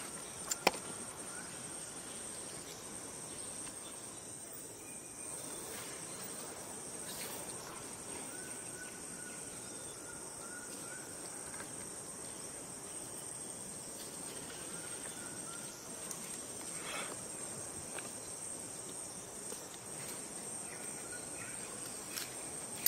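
Insects buzzing steadily at a high pitch over outdoor ambience, with a sharp click about a second in.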